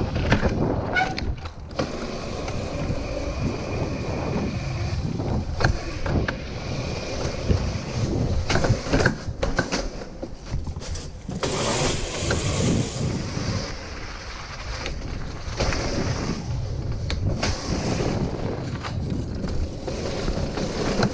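Wind buffeting and rumble on an action camera's microphone as a bike is ridden over grass, dirt, leaves and pavement, with frequent knocks and rattles from the bumps.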